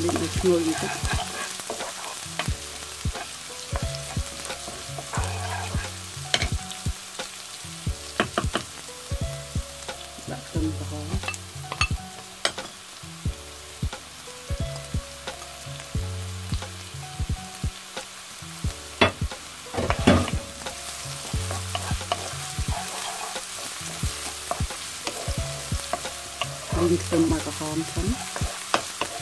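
Minced shallot and garlic sizzling in hot oil in a non-stick wok, stirred with a wooden spatula that scrapes and knocks irregularly against the pan.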